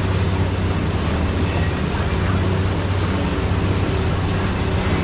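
Boat engine running steadily underway, a low even drone with water and wind noise over it.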